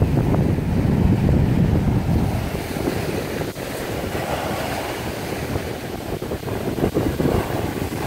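Surf breaking and washing up a sandy beach, mixed with strong wind buffeting the microphone as a low rumble. The rumble is heaviest for the first two or three seconds, eases in the middle and builds again near the end.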